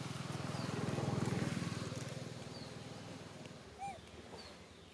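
A small motor vehicle passing by: its engine hum grows louder, is loudest about a second in, then fades away. Short high bird chirps sound over it, with one louder chirp near the end.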